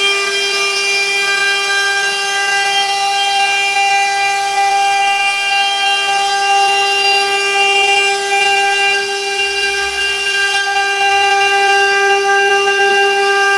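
CNC router spindle running with a steady high-pitched whine while its small bit mills a groove along the edge of a wooden cutting board.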